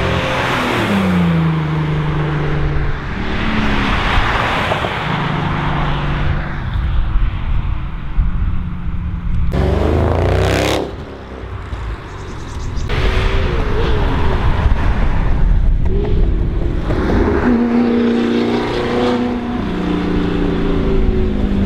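Audi cars driving past one after another, each engine note rising as it accelerates and falling away. An Audi S8 passes about halfway through, and an Audi R8 pulls away near the end with its engine revving.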